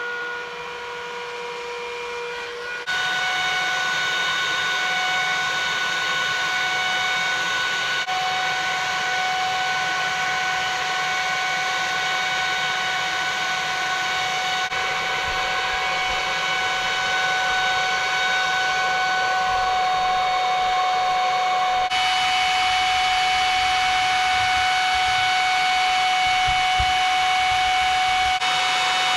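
Hair dryer running steadily with a whining motor, heating a knife blade for waxing; it gets louder about three seconds in.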